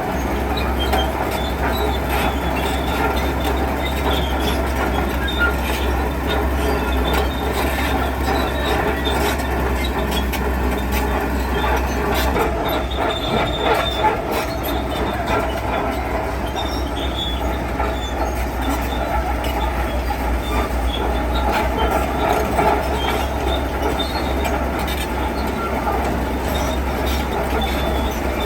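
Heavy construction machinery working: a steady diesel rumble with metallic squealing and clanking, typical of tracked machines such as a bulldozer or excavator moving over stone.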